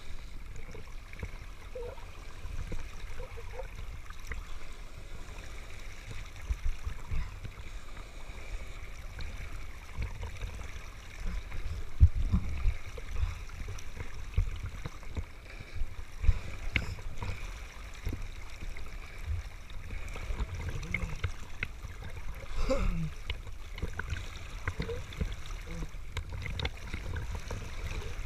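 Sea water rushing and splashing around a person in a wetsuit moving through the water, with a steady low rumble on the microphone. A few sharper slaps of water stand out, the loudest about halfway through.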